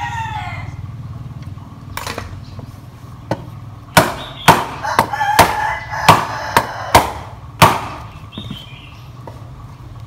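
Hammer blows on a stripped-down Stihl 660 chainsaw crankcase, about ten sharp strikes, the hardest and quickest of them between about four and eight seconds in, driving parts home before the screws are tightened. A steady low hum runs beneath.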